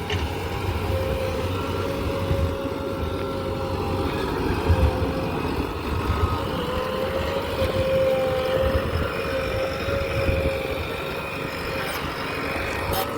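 Diesel engine of a JCB excavator running steadily, a low rumble with a steady high whine over it that wavers slightly in pitch.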